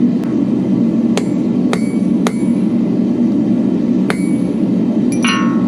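Hammer blows on steel against an anvil while forging a flint striker: five separate ringing strikes spaced unevenly, then a quick ringing cluster near the end, over a steady low drone.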